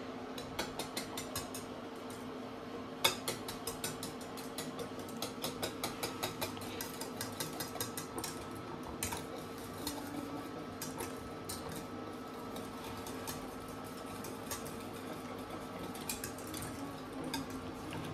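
Wire whisk beating a liquid sauce in a stainless-steel saucepan: rapid clicking and scraping of the wires against the pot, several clicks a second, thinning out in the second half. A faint steady hum runs underneath.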